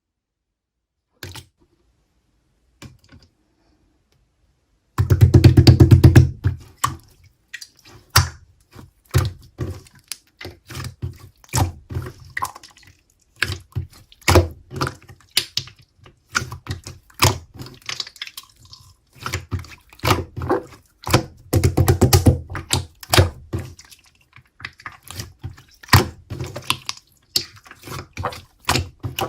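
Slime being squeezed and poked by hand, giving an irregular run of wet clicks and pops as air pockets burst. It starts about five seconds in, after near quiet, and has two denser, heavier squelching stretches.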